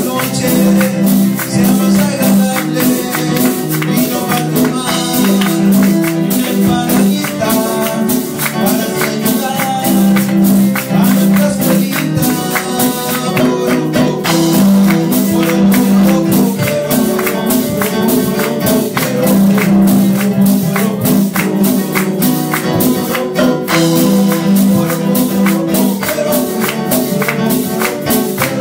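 Live Latin American folk band playing an upbeat song: nylon-string guitar and keyboard chords over hand percussion keeping a steady rhythm, with a man singing.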